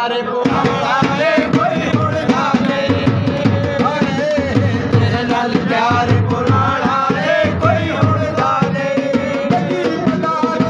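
Dholak played by hand in a steady, driving rhythm for folk dance music, with a wavering melody line over the drumming.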